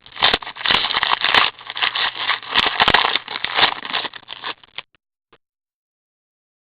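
Crackling and scraping of trading card packs and cards being handled, with many small clicks, stopping abruptly about four and a half seconds in.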